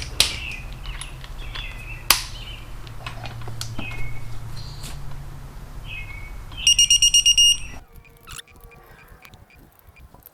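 A digital torque wrench beeping rapidly, about seven high electronic beeps within a second, some seven seconds in, signalling that a bolt has reached its 17 ft-lb torque setting. Before it, a few sharp clicks and a low steady hum that stops when the beeping ends.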